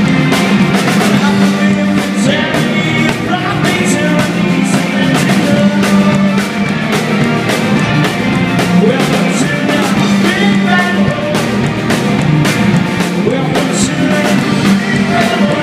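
Live rock band playing, with electric guitars, drums and a singer, heard from the side of the stage.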